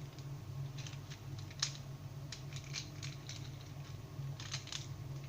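Light, scattered clicks and taps of small plastic Beyblade parts being handled, one a little louder about a second and a half in, over a steady low hum.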